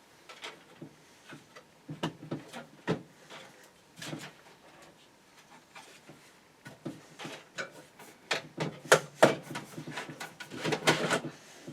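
Irregular clicks, knocks and rattles of plastic and metal parts being handled while a hard-drive hot-swap bay is fitted into a PC case, with a busier run of clatter near the end.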